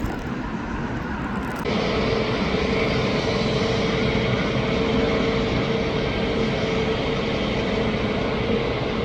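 Jet airliner engine noise: a steady roar with a droning whine on top, growing suddenly louder about two seconds in and then holding steady.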